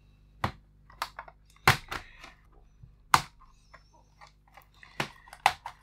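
Plastic keyboard of an Acer Aspire 5733 laptop being pried up by hand: a string of sharp, irregular clicks and snaps as its retaining tabs pop free one by one.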